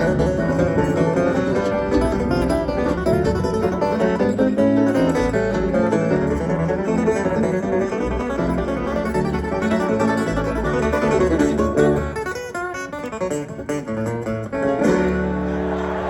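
Acoustic bluegrass band with guitar and banjo playing a fast song, thinning out about twelve seconds in and closing on one held, ringing chord near the end.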